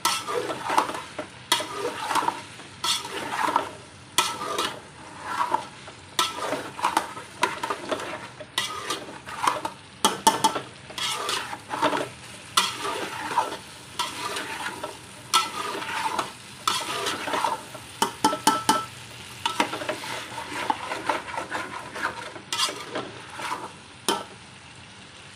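Metal spatula repeatedly scraping and clattering against an aluminium pot as cauliflower and potatoes are stir-fried in the spice masala, over a steady sizzle of frying; the strokes come irregularly, about one or two a second.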